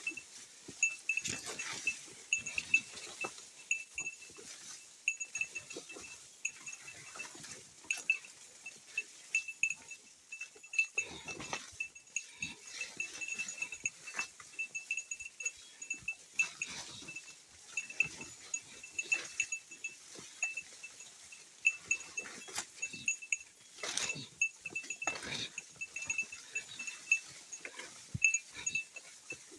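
A small bell carried by a hiker, a bear bell, jingling over and over with the walking, with the knocks and scuffs of footsteps on the trail between the rings.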